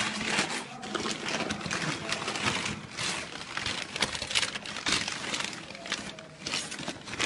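Tissue-paper wrapping being crumpled and pulled open by hand, an irregular rustling and crinkling.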